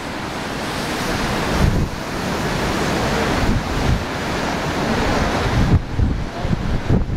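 Baltic Sea surf washing onto the beach, a steady rush that swells and eases, with wind gusting on the microphone.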